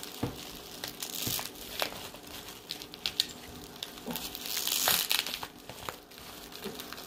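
Packing material being handled and pulled about, crinkling and rustling in irregular bursts with small clicks, strongest around five seconds in.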